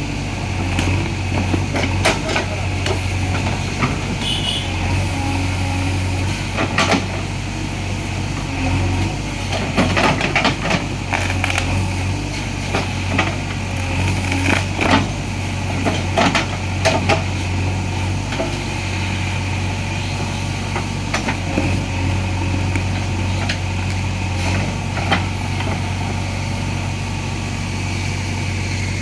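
JCB 3DX backhoe loader's diesel engine running steadily at work, with frequent sharp knocks and clanks scattered throughout.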